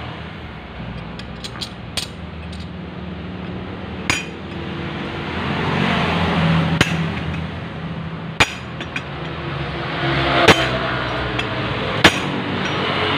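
A long steel bar rammed down through the hollow shaft of a Honda Vario 125's CVT driven pulley, knocking out its inner bearing: about six sharp metal clanks, one every second and a half or two, with lighter clinks between. A steady low hum runs underneath and swells twice.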